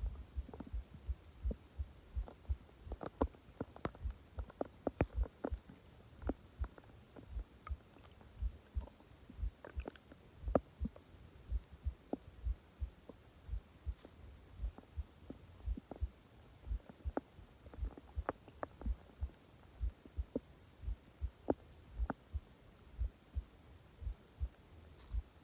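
Subtle stomach growling: scattered small gurgles and clicks from the gut, some in quick clusters, over a steady low rhythmic thumping.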